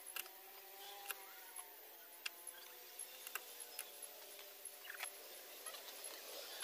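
Knife tapping on a plate while red onion is chopped: a few faint, irregular clicks, roughly one a second, over a faint wavering hum.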